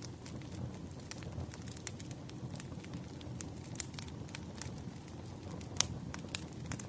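Campfire crackling: irregular sharp pops and snaps over a steady low rumble of burning wood, with one louder pop near the end.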